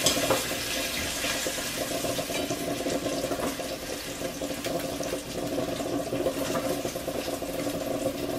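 Bacon sizzling in a cast iron frying pan: a steady hiss with scattered small crackles and pops, over a steady low hum.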